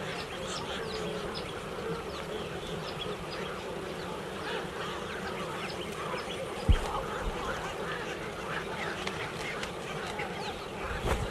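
A large flock of birds calling all at once, a dense din of many short overlapping chirps and squawks. There is a short low thump about two-thirds of the way through.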